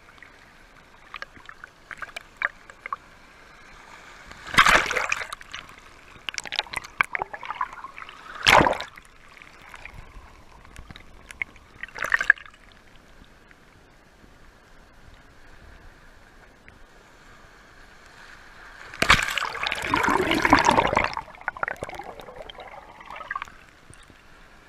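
Shallow water washing over sand right at the microphone, trickling and gurgling, with short splashing surges about five, eight and twelve seconds in. A longer, louder slosh of water comes around twenty seconds in.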